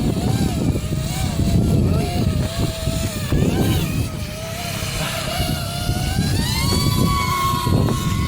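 TBS Vendetta FPV racing quad's brushless motors whining in flight. The pitch wavers with throttle, then rises about six seconds in and holds at a higher note. Wind rumbles on the microphone.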